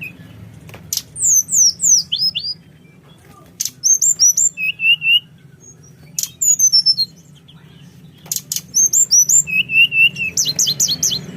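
A songbird in full song, giving rapid bursts of sharp, downward-sliding whistled notes, four bursts with short pauses between them, with a few sharp clicks in the pauses.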